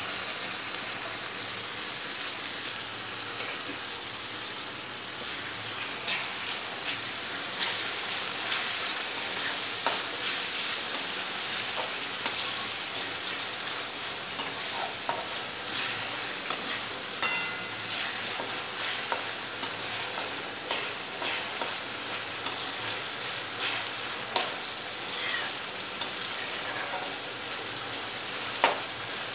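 Chopped tomatoes sizzling in hot oil in a metal kadai, stirred with a slotted metal spatula that scrapes and clicks against the pan, with a few sharper knocks of the spatula.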